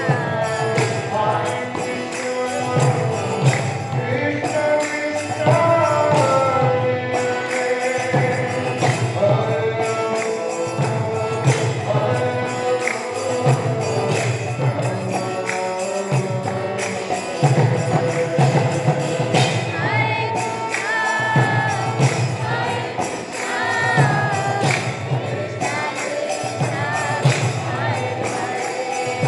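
Vaishnava devotional kirtan: voices singing a chant over a harmonium's steady held notes, with small hand cymbals (karatalas) jingling in a continuous beat.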